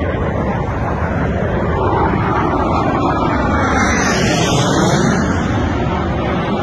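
Military jet aircraft flying low overhead: a steady rush of jet noise, with a sweeping tone that glides up in pitch around the middle as it passes.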